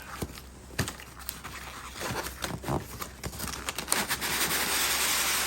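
Cardboard box and styrofoam packing being handled: a few sharp knocks, then a long scraping rustle that builds over the last few seconds as the packing is worked out of the box.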